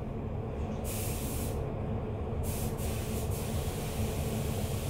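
Steady low hum and rumble of background noise with a faint hiss above it that cuts in and out.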